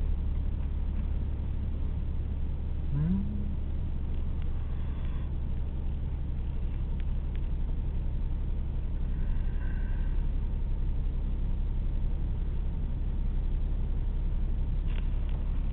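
Car engine idling while stopped, heard from inside the cabin as a steady low hum, with a short rising tone about three seconds in.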